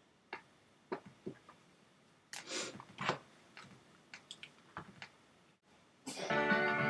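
A few sharp clicks and two short rustling handling noises, then music starts suddenly about six seconds in, the end-credits music of a VHS tape playing through a TV speaker.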